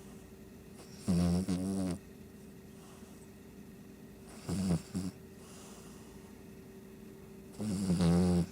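Shih Tzu snoring: three snores about three seconds apart, the middle one shorter and fainter.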